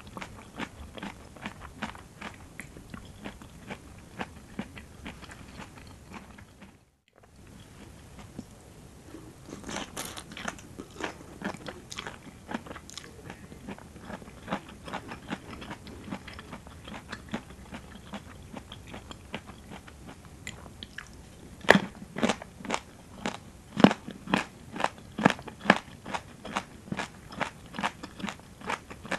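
Close-miked chewing of a rice noodle salad with crunchy raw vegetables: a steady run of crisp crunches and bites. The sound cuts out for a moment about a quarter of the way in, and the crunches grow louder and sharper in the last third.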